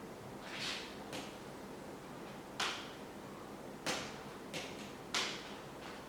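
Small metal bicycle brake parts clicking and scraping as they are handled and slid into place on the bike, about half a dozen short, sharp clicks over a few seconds.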